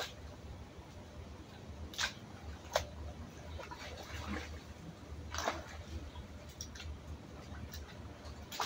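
Pool water splashing as a swimmer swims across, with sharper splashes about two seconds in, just before three seconds and around five and a half seconds, over a steady low hum.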